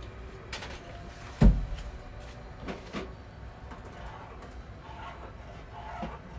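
A single heavy thump about a second and a half in, with a few lighter knocks and clicks before and after it.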